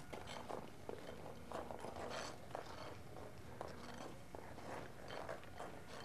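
Irregular crunching and scraping on an ice-crusted, snow-dusted surface: a quick, uneven series of short crisp scrapes and crunches.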